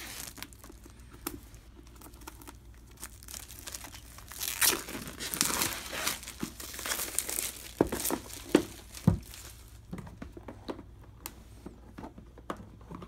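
Plastic shrink-wrap being torn and peeled off a cardboard board game box, crinkling and crackling. The crinkling is densest and loudest for a few seconds in the middle, then thins to scattered crackles.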